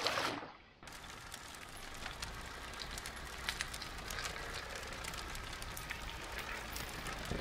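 A short splash right at the start, then a bushfire burning through grass and scrub: a steady, dense crackle of many small pops.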